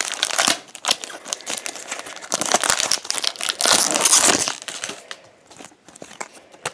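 Foil wrapper of a Pokémon trading-card booster pack crinkling and tearing as it is opened by hand and the cards are pulled out. The crackling dies down about four and a half seconds in, leaving only a few faint clicks and rustles.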